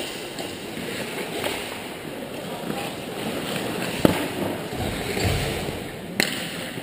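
Ice hockey play at close range: skate blades scraping and carving on the ice. About four seconds in comes a sharp clack from a shot on the puck, and a second sharp knock about six seconds in.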